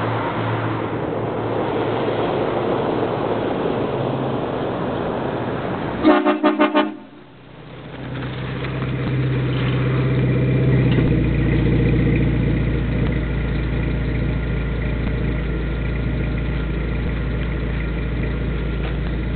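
Hornblasters train horn on a Jeep TJ sounded in about four quick blasts over roughly a second, about six seconds in. Around the blasts the Jeep runs with steady engine and road noise, which grows louder again from about eight to eleven seconds in.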